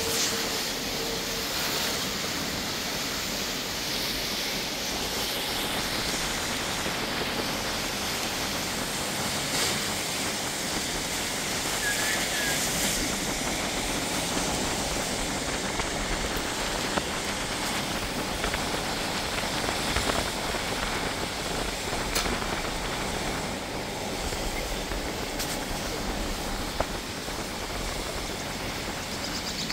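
Heavy rain falling in a steady hiss, with a few faint ticks scattered through it and one brief high squeak about twelve seconds in.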